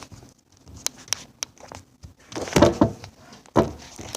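Handling noise as the recording device is set up: a few sharp clicks, then a louder stretch of knocking and rustling from about halfway through.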